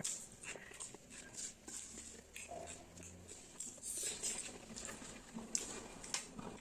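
A person chewing and smacking while eating, with irregular wet clicks of mouth and lips.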